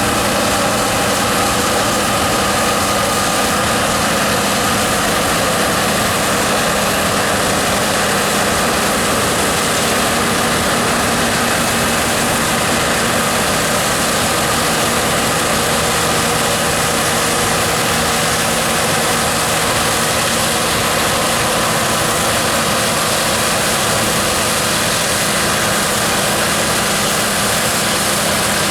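John Deere 9670 STS combine harvester running steadily while heading wheat: the engine and threshing machinery make an even, unbroken drone with a couple of constant tones.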